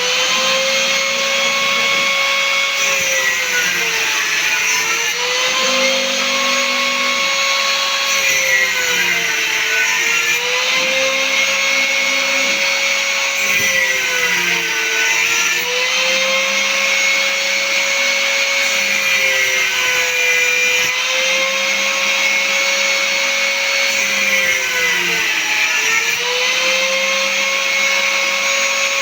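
CNC router spindle cutting a guitar fretboard: a steady high whine whose pitch sags briefly and recovers about every five seconds, with a lower hum switching on and off beneath it.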